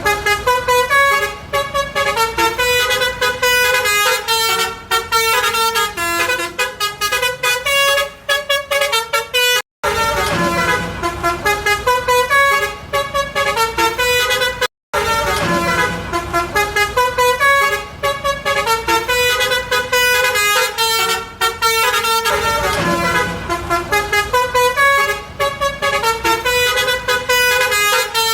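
Tour bus 'telolet basuri' musical horn playing a fast melody of short tooting notes. The horn breaks off abruptly twice, about ten and fifteen seconds in, and starts up again at once.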